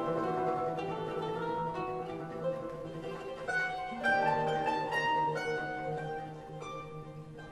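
Plucked-string orchestra of mandolins and guitars with double bass playing a modern concert piece: many short plucked notes and some held ones over a steady low bass note, growing quieter toward the end.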